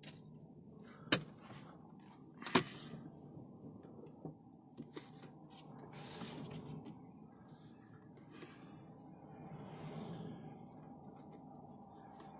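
Faint rustling and handling noise as a handheld phone is moved and settled, with two sharp clicks about a second and a half apart near the start.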